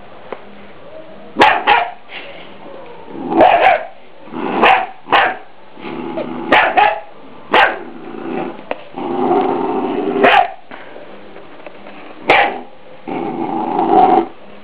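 A three-month-old Scottish Terrier puppy barking in sharp, irregular barks, with two longer growls that each break into a bark. This is warning barking at an unfamiliar object, a deer skull, which the owner thinks the puppy takes for something alive.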